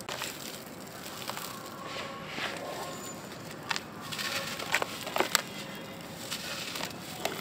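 Hands breaking a soft white chalky block apart under water in a basin: water sloshing, with crumbling and crushing sounds and a few sharp clicks between about four and five and a half seconds in.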